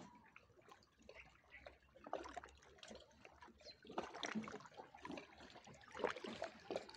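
Gentle lake water lapping in small irregular splashes, with slightly louder laps about two, four and six seconds in.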